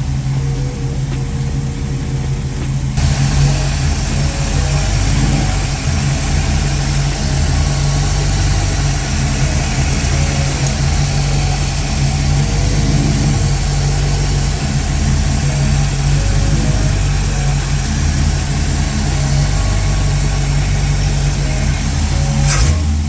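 A 1956 Ford Customliner's engine running steadily, getting louder and noisier from about three seconds in.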